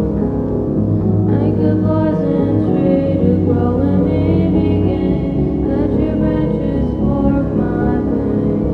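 Ambient soundtrack music with a steady low bass and sustained, choir-like voices.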